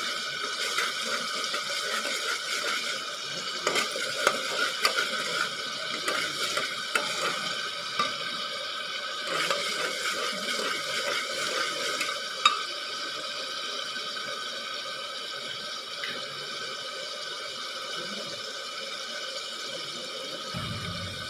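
Chopped onion and tomato masala sizzling steadily in hot oil in a metal pot. A metal spoon stirs and scrapes against the pot, with scattered clicks and knocks through about the first half.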